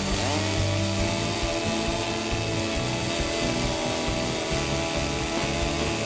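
Chainsaw on a chainsaw mill ripping a log lengthwise, its engine running steadily under load through the cut, with background music.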